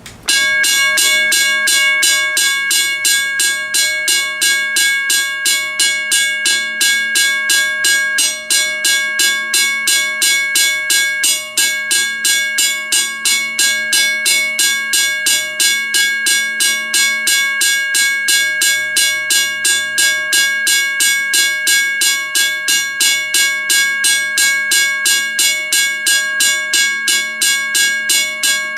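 WRRS 1203 mechanical railroad crossing bell ringing: its clapper strikes the gong in a rapid, even rhythm, each stroke leaving a steady metallic ring. It starts abruptly and keeps an unbroken pace.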